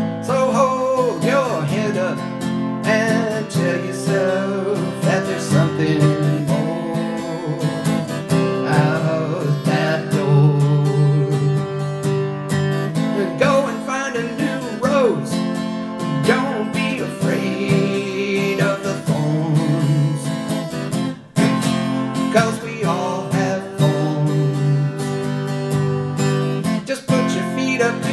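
Taylor 224 K DLX acoustic guitar strummed and picked, with a man singing along into a close microphone.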